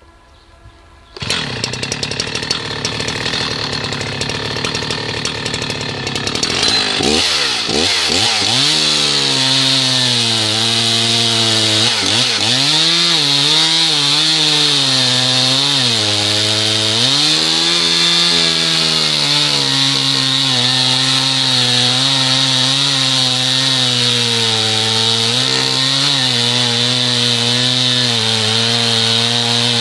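Husqvarna 61 two-stroke chainsaw running at high revs and cutting wood, its engine note dipping and recovering again and again as the chain bites under load. The sound starts suddenly about a second in.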